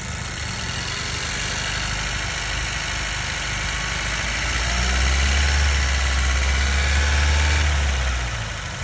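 2018 Honda Civic Si's 1.5-litre turbocharged four-cylinder engine running, with a deep drone that sets in about halfway through and stops shortly before the end: the weird noise the car makes at around 2100 rpm.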